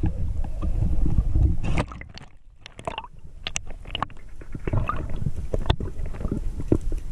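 Small sea waves slosh against an action camera at the surface, with a steady low rumble. About two seconds in the sound drops away as the camera goes under, leaving the quieter underwater sound of scattered sharp clicks and crackles.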